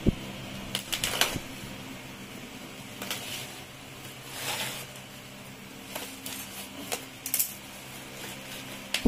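Scissors snipping and plastic and paper packing wrap crinkling and tearing as a wrapped package is cut open by hand: scattered sharp clicks with a few short rustles, over a steady low hum.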